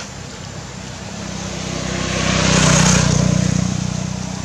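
A motor vehicle passing by: its engine and road noise grow louder, peak about three seconds in, then fade away.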